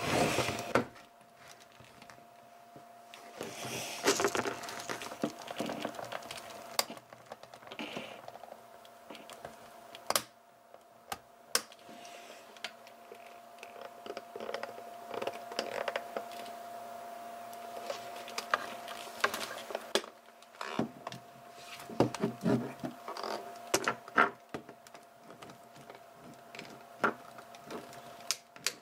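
Hands working on a plastic laptop case: irregular clicks, taps and scraping as the back cover is fitted and pressed into place, over a faint steady hum.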